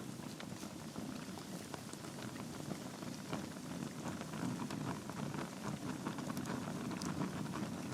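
Logs burning in a fireplace: a steady low rush of flame with many small crackles and pops scattered throughout.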